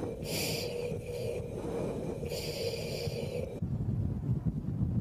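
Three hissing breaths through a fighter oxygen mask's regulator over a steady engine hum inside the cockpit. About three and a half seconds in this cuts to a low outdoor rumble with wind on the microphone.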